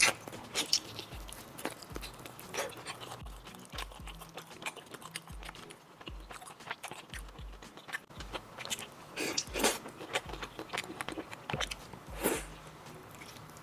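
Close-up eating sounds: biting and chewing large crayfish tails pulled off a bamboo skewer, with scattered wet clicks and smacks and louder bursts of chewing near the end. Faint background music runs underneath.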